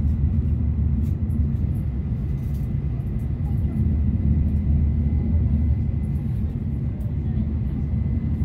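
Shinkansen bullet train running at speed, heard inside the passenger cabin as a steady low rumble, with a faint steady high tone over it.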